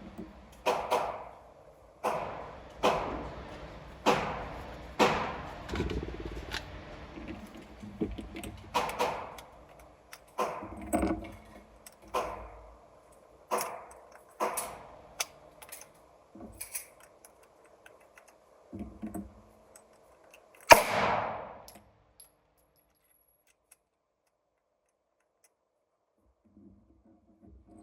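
Gunshots at a firing range: a string of sharp reports about a second apart, each with a short echoing tail, thinning out after about 15 seconds, with a last loud shot about 21 seconds in and then near silence.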